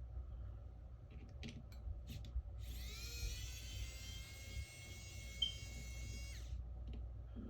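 Small battery-powered electric screwdriver running for about three and a half seconds, whining up to speed as it starts and winding down as it stops. A few small clicks come before it.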